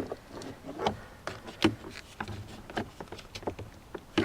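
Irregular clicks and knocks of hands and a tool working at a car door's plastic trim to prise out the window switch.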